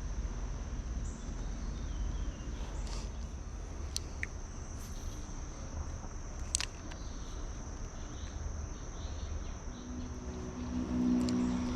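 Steady high-pitched insect drone, a single unbroken tone like a cricket's, over a low rumble, with a few sharp clicks. Music fades in near the end.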